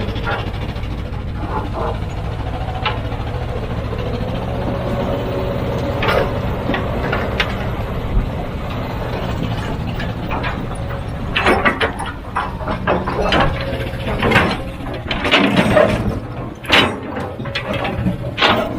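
Heavy earthmoving machine's diesel engine running steadily. In the second half come a series of loud clanks and knocks.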